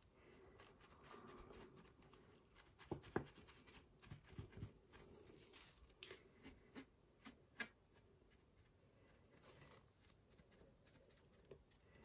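Faint dabbing and rustling of a folded paper tissue blotting wet watercolour paper, with a few soft taps scattered through an otherwise near-silent room.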